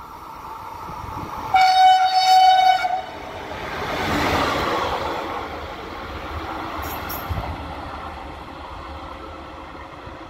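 FS D445 diesel-electric locomotive sounding its horn once, a single steady note of about a second and a half. The locomotive and its train then run through at speed, the rumble of engine and wheels swelling to a peak a couple of seconds later and fading as the train draws away.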